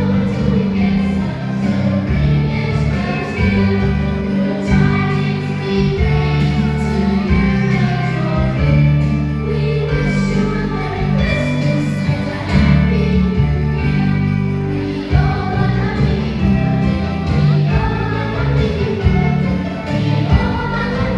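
Music with a group of voices singing over a heavy bass line.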